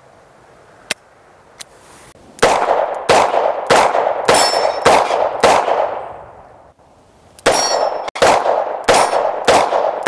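Rock Island Armory AL9.0 9mm six-shot revolver firing single action in quick strings, about two shots a second, with a ringing tail after each shot. A string of six shots begins about two and a half seconds in and fades out, and a second string starts about two seconds later. Two faint clicks come before the first shot.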